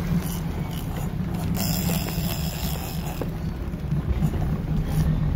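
Boat engine running steadily, with wind and water rushing past the hull. About a second and a half in, a brief high hiss comes in for a second and a half.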